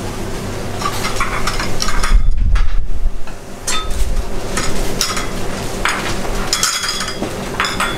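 Busy commercial kitchen: a steady hum under scattered clinks and clatter of dishes and utensils, with a louder low rumble about two seconds in.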